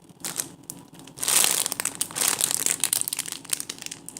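Crinkly plastic or packaging being handled, a dense crackling that grows loud about a second in and goes on fitfully to near the end.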